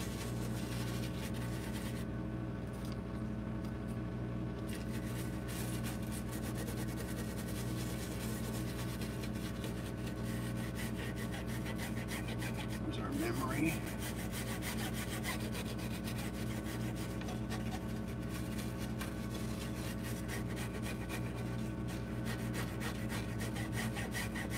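Toothbrush scrubbing a laptop circuit board wet with isopropyl alcohol: a continuous run of quick bristle strokes, over a steady low hum.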